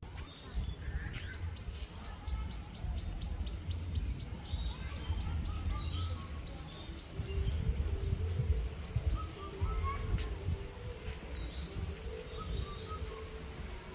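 Wind rumbling on the microphone while several birds chirp and call, with a quick run of ticking notes early in the clip. A steady low tone comes in about five seconds in and continues.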